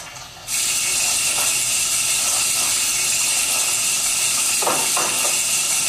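Kitchen tap water running steadily into the sink with an even hiss, switched on abruptly about half a second in.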